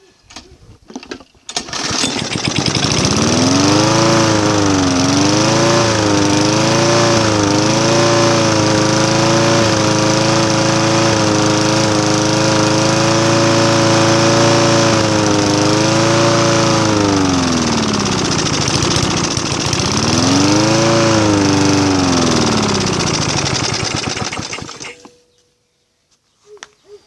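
Briggs & Stratton 3.5 hp lawn mower engine running on spray oil instead of gasoline. It catches about two seconds in, runs with its speed wavering up and down, steadies, sags and picks up again, then dies about 25 seconds in.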